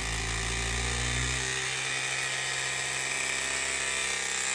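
Hilti battery press tool running steadily with a whine as its jaw presses a copper press fitting onto the pipe; its lowest hum drops away about a second and a half in.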